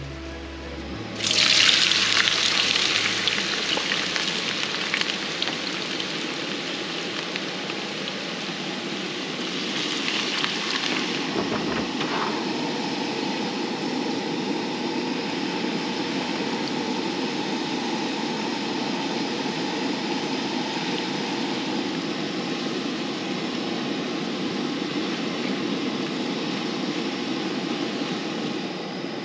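Potato fries hitting hot oil in a frying pan on a camp stove: a sudden loud hiss about a second in that settles into a steady sizzle, with another surge of sizzling around ten seconds in.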